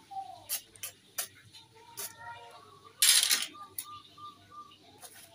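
Hand-forged steel sickles (arit) cutting through paper strips to test their sharpness and being laid on cardboard: a few sharp clicks and taps of metal, then a loud half-second swish about three seconds in and a shorter one near the end.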